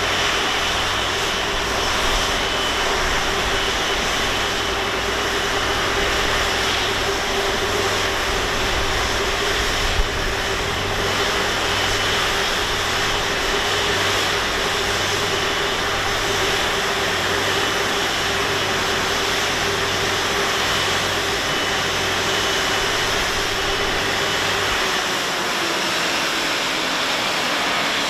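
Rolls-Royce Trent 700 turbofans of an Airbus A330-343 running at taxi idle, a steady jet whine. Near the end the tones begin to fall as the engines start to spool down with the aircraft reaching its stand.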